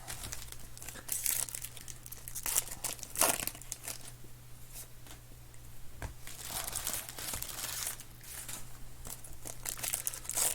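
Trading-card pack wrappers being torn open and crinkled in irregular bursts as 2020 Panini Contenders football packs are ripped, over a low steady hum.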